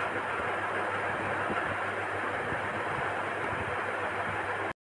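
Steady background noise picked up by a phone's microphone, an even hiss with a low hum under it, cutting off suddenly near the end.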